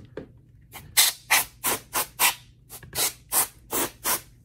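Can of compressed-air electronics duster sprayed through its straw in about ten short, quick blasts, two to three a second, blowing dust and dirt off a laptop's bared keyboard deck.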